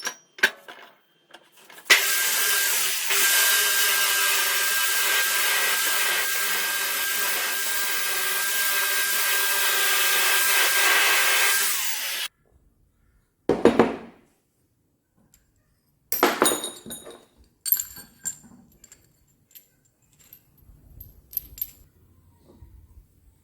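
Electric drill running steadily for about ten seconds, a steady motor whine over grinding noise, then cutting off abruptly. A short burst of noise and a few clicks and rattles of handling follow.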